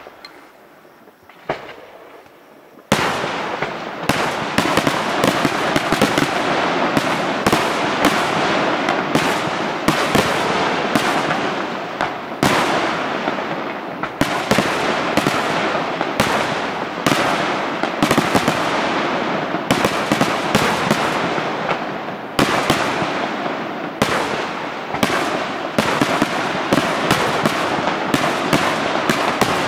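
Aerial fireworks display. A few separate bangs, then about three seconds in a dense, unbroken barrage of shell bursts and crackling sets in and keeps going.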